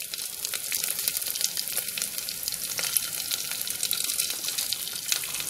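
Chopped onion and garlic frying in hot oil in an aluminium pressure cooker, browned: a steady sizzle with many fine crackles.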